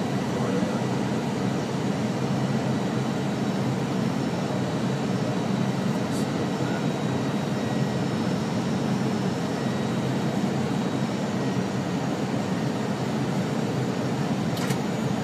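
Steady drone of an aircraft's engines and airflow heard from inside the aircraft in flight, with a faint whine over it. There is a faint click about six seconds in and another near the end.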